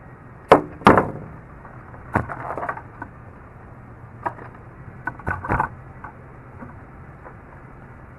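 Sharp metallic clicks and knocks from a cheap folding multitool being handled as its tools are folded out and back in while searching for the can opener. The two loudest come about half a second and a second in, with smaller clusters a little after two seconds and around five seconds.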